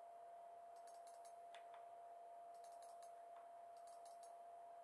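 Faint typing on a backlit mechanical keyboard: short runs of three or four quick key clicks, three times, over a steady faint tone.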